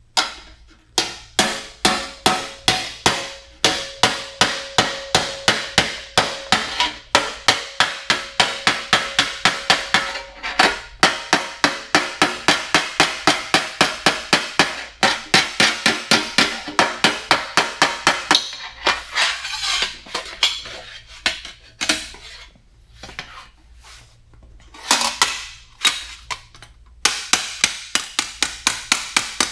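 Hand hammer striking the flange of a sheet-steel cab corner panel against a dolly, working it over toward 90 degrees. The blows come fast and even, about four a second, with a metallic ring in the early part. The blows thin out and stop for a few seconds late on, then resume near the end.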